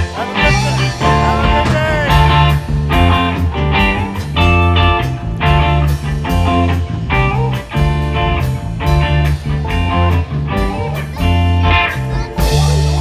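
Rock music with electric guitar, bass and a steady beat, in a blues-rock style.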